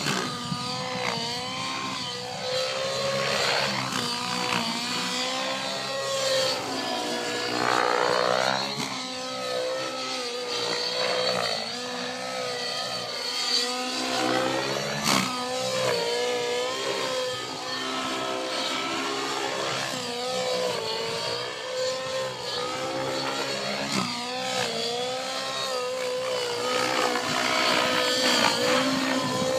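Align T-Rex 700 Nitro RC helicopter flying manoeuvres: its two-stroke glow engine and rotor run at high revs, the pitch wavering up and down as it turns and passes. A single sharp click comes about halfway through.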